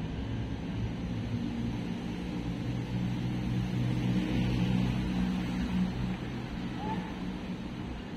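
Low engine hum of a motor vehicle, steady in pitch, growing louder through the middle and fading out near the end, as of a vehicle passing by out of sight.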